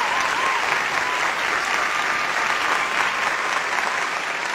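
Audience applauding steadily at the end of a recited song-poem.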